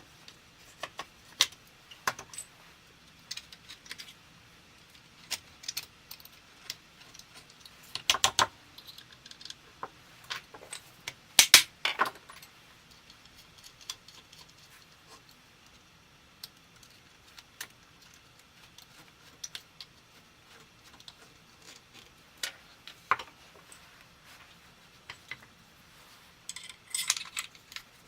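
Scattered sharp metallic clicks and taps of small steel parts and hand tools being handled during scope-mount work on a rifle. A cluster of clicks comes about eight seconds in, the loudest pair just before twelve seconds, and another quick run near the end.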